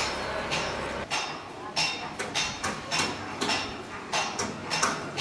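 Metal hand tools striking brick and masonry during demolition: a run of sharp knocks, about two a second, each with a short metallic ring.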